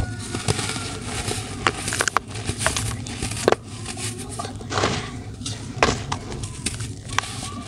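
Dry, powdery grey lumps crumbled and squeezed by hand over a plastic basin: an irregular gritty crunching and crackling, with scattered sharp little cracks as pieces break apart.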